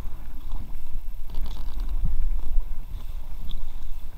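Low, steady rumble of handling and wind on the microphone of a camera aboard an inflatable kayak, with faint water sounds from the kayak drifting on a shallow brook.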